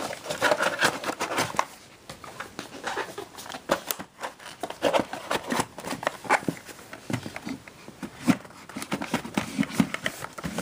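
Handling noise from a book-style Blu-ray disc case being put back into its collection box: many scattered knocks, taps and rustles of cardboard and case.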